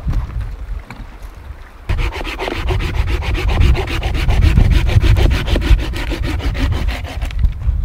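A hand saw cutting through a dead branch in quick, even rasping strokes. It starts about two seconds in and stops near the end.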